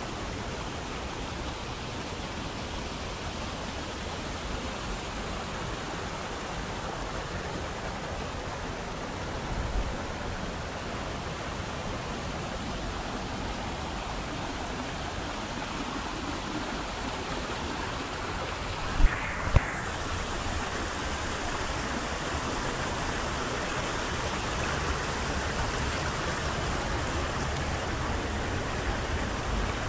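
Steady rushing of a rocky mountain stream cascading between boulders, with two sharp knocks close together about two-thirds of the way through.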